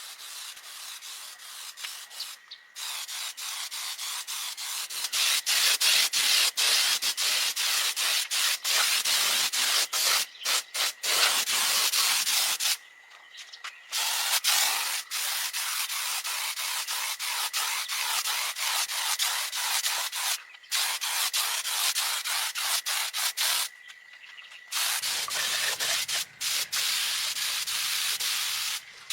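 Steady abrasive sanding noise, a dense rasping hiss that stops abruptly twice, briefly each time, about 13 and 24 seconds in.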